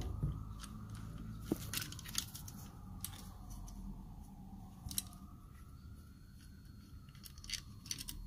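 Scattered light clicks and small metallic handling noises as the two screws holding the voltage regulator are undone on the back of a Bosch alternator, with a faint wavering tone underneath.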